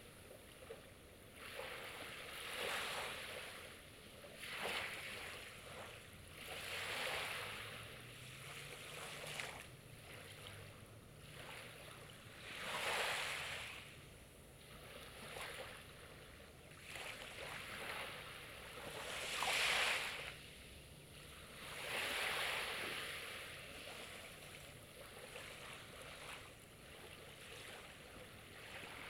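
Small sea waves breaking and washing on the shore in repeated swells every couple of seconds, with two larger ones, about halfway and two-thirds of the way through.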